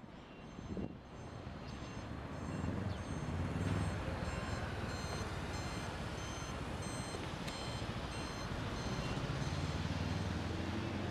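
A vehicle's reversing alarm beeping over and over at a construction site, over a steady low rumble of heavy engines and traffic that swells about two seconds in.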